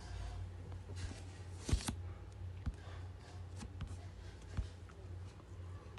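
A few soft taps and handling noises from fingers working an iPhone, the loudest about two seconds in, over a steady low hum.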